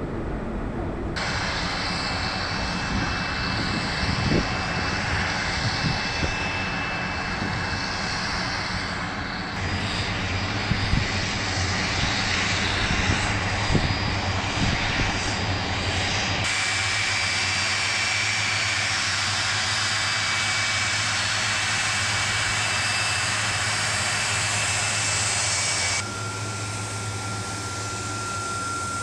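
Boeing 747's four jet engines running while the airliner taxis: a steady roar with a high turbine whine. The sound changes abruptly three or four times as the footage cuts between shots.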